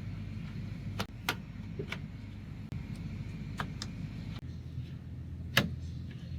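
Plastic push-in retainer clips being pressed into a truck's plastic intake cover: about six sharp clicks spread over several seconds, the loudest near the end, over a steady low hum.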